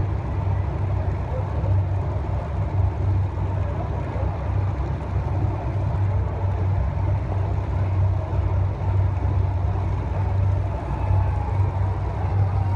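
Race vehicle engines running over a steady low drone, with faint engine notes rising and falling as they rev.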